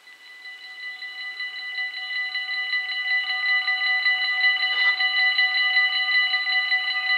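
Railroad crossing warning bells ringing rapidly, starting right away and growing louder over the first few seconds before holding steady: the crossing's warning that a train is approaching, with the half-barriers starting to come down.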